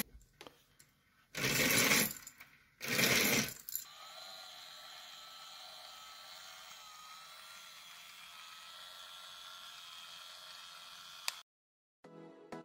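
Beaded roller-blind chain rattling in three loud bursts of about a second each. After them, the Aqara Roller Shade Driver E1's motor runs with a quieter steady hum and a faint wavering whine, which cuts off near the end.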